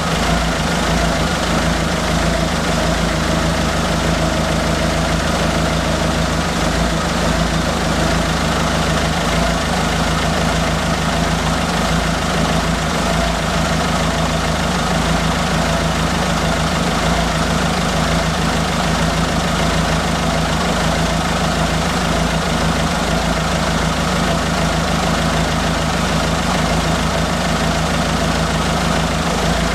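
Citroën Berlingo's 1.6 HDi (DV6) four-cylinder diesel engine idling steadily while the injector return (leak-off) flow is collected in measuring vials.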